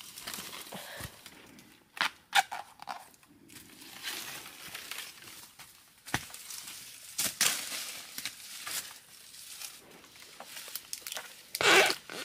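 Dry bamboo leaf litter crackling and rustling as leaves and soil are dug and scraped away around a bamboo shoot, with a few sharp knocks and crunches, the loudest near the end.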